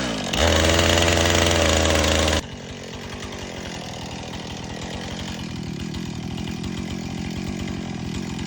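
Gas chainsaw revved at full throttle for about two seconds, then dropping abruptly back to a steady idle.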